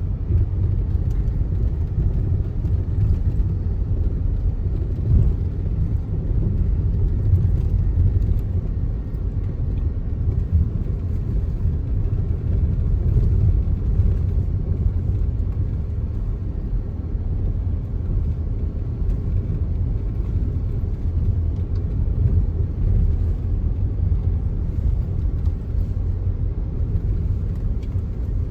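Audi Q5 driving: a steady low rumble of engine and tyres, with a few faint ticks.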